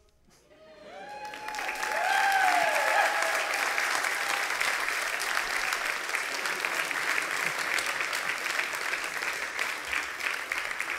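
Congregation applauding as the newlyweds kiss after being pronounced husband and wife. The clapping swells quickly from quiet and holds steady, with a few whoops and cheers in the first seconds.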